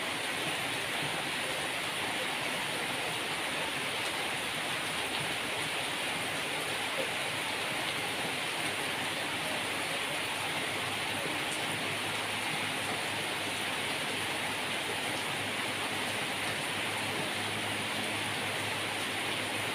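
Rainwater pouring in a thin stream from a spout onto bare ground, splashing steadily into a shallow puddle.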